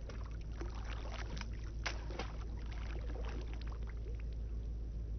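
Shallow lake water sloshing and splashing, with many small irregular splashes over a steady low rumble.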